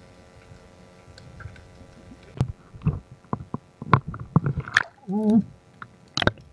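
Water sloshing and gurgling around a diver at the surface at night: first a faint low rumble, then from about two seconds in a run of sharp knocks and splashes. A short wavering pitched tone comes about five seconds in, and a loud splash or knock follows near the end.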